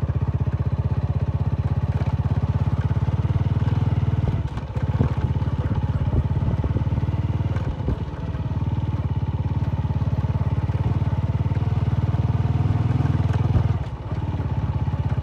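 Honda motorcycle engine running steadily under way, its exhaust pulse dense and even. The sound dips briefly three times, about four and a half, eight and fourteen seconds in.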